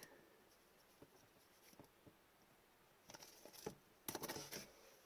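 Soft crinkling of a plastic team bag as an oversized trading card is worked into it: faint handling ticks, then two short bursts of rustle in the second half.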